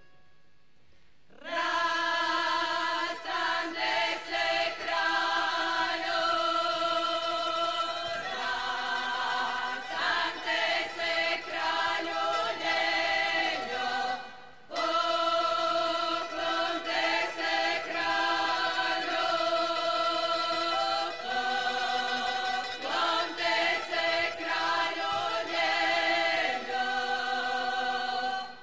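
A women's folk choir sings a Slavonian kraljice song unaccompanied, in long held phrases. The singing begins about a second and a half in and pauses briefly about halfway before the next verse.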